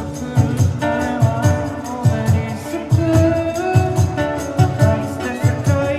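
Music with a steady beat and a held melody line.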